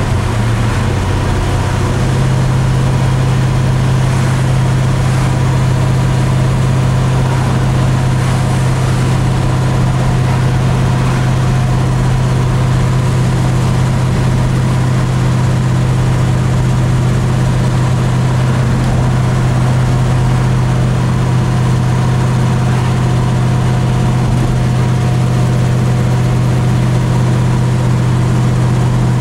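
Big-block 396 Chevrolet V8 of a 1981 Monte Carlo heard from inside the cabin, running at a steady cruise with an even, constant low drone and road noise.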